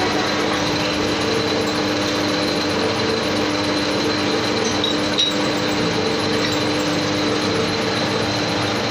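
Metal lathe running steadily with its chuck spinning: an even mechanical hum with a few constant tones, and one short click about halfway through.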